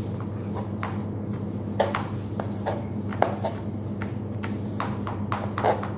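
A knife cutting up raw chicken, its blade making irregular sharp taps and knocks a few times a second, over a steady low hum.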